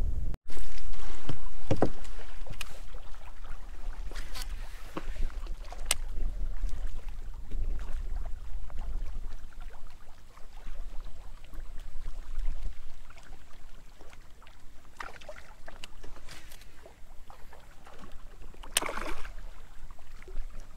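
Small fishing kayak on the water: water lapping and slapping against the hull under a low rumble, with scattered knocks and splashes, the strongest about nineteen seconds in.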